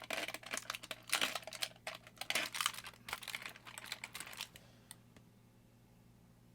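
Rapid light clicking and rattling of small toy-car racing wheel-and-axle sets being picked through and handled, stopping about four and a half seconds in.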